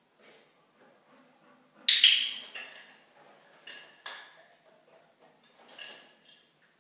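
Dog-training clicker clicked several times, sharp metallic clicks with a brief ring, the loudest pair about two seconds in; the clicks are reward markers in retrieve training.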